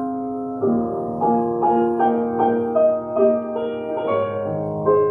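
Piano playing a melody over held lower chords, with no singing at this point: the piano part of a choir anthem.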